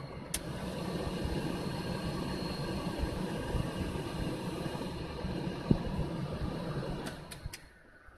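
Daihatsu Hijet Cargo's air conditioner blower fan running, a steady rushing hum from the dash vents over the van's idling engine. A few sharp clicks come about seven seconds in, and the sound then dies away.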